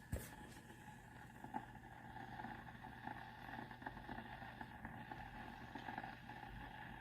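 Heated steam humidifier boiling its water: a faint, steady boiling sound over a low hum, with a few soft ticks.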